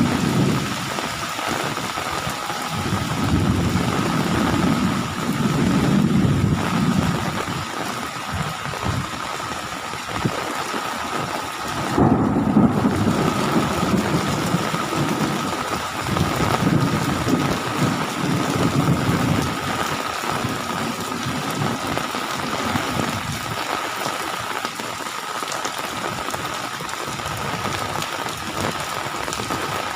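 Heavy rain pouring steadily in a thunderstorm, with low rolling thunder swelling and fading several times.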